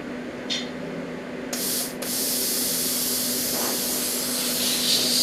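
Plasma cutter torch blowing air: a short hiss about a second and a half in, a brief break, then a steady hiss, over a steady low hum.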